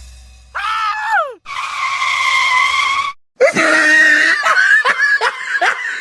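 Loud screaming cries: a short cry that falls in pitch, then a long cry held on one pitch for about a second and a half, then a quick run of short rising-and-falling cries.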